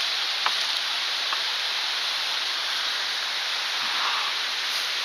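Steady rush of a mountain stream's waterfalls and cascades, an even hiss, with a couple of faint clicks in the first second and a half.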